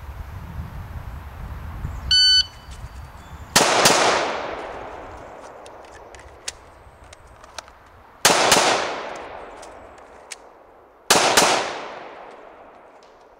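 A shot timer beeps once, then a Glock 21SF .45 ACP pistol fires three pairs of shots, the two shots in each pair about a third of a second apart. Each pair echoes away over a few seconds, and faint clicks of magazine reloads fall in the gaps between pairs.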